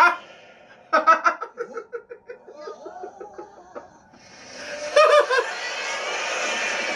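A man laughing hard in rapid, pulsing bursts, the longest run starting about a second in and lasting some three seconds, with another short burst of laughter about five seconds in.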